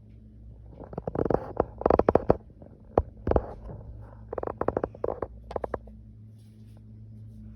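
Bursts of rapid knocking and rattling thuds from an upstairs neighbour's flat, heard through the ceiling, in several clusters over about five seconds, loudest about two seconds in. A steady low hum runs underneath.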